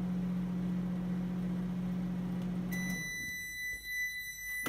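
Microwave oven running with a steady hum that stops about three seconds in, followed by a long high electronic beep of about two seconds. A sharp loud click comes right at the end.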